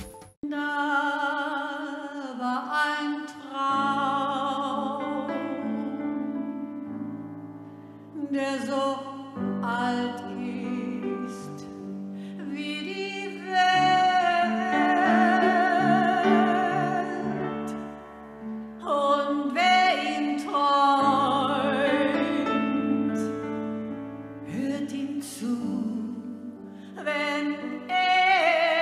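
A woman singing in a classical, operatic style with a strong vibrato, accompanied by grand piano chords.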